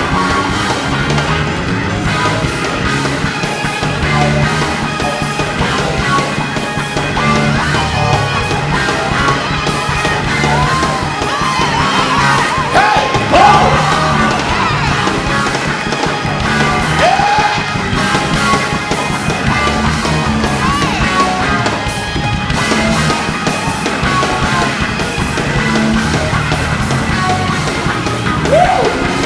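Loud rock-style band music playing steadily, with voices yelling out over it a few times, in the middle and near the end.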